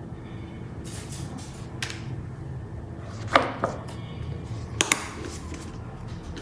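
Scattered light knocks and clicks from handling a small handbag and the things being put in it, the loudest about halfway through and a quick double click near the end, over a steady low hum.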